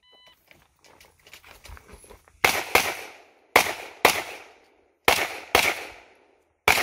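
A shot timer gives a brief start beep, then after about two seconds of faint handling noise a handgun fires seven shots, mostly in quick pairs about a second apart, each with a short ringing decay.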